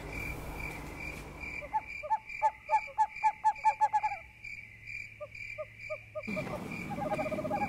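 Night ambience: a cricket chirping steadily in short regular pulses. About two seconds in, another night animal gives a quick run of repeated calls, about five a second, then a few scattered calls until near the end.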